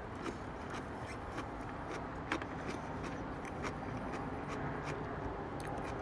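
A person biting into and chewing a crunchy Grillo's Sweet and Spicy pickle slice: scattered small crunching clicks, over a steady low background rumble.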